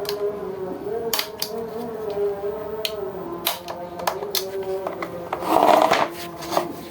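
Irregular clicks and taps of small hard objects being handled, with a louder scraping rasp near the end, over a faint wavering hum.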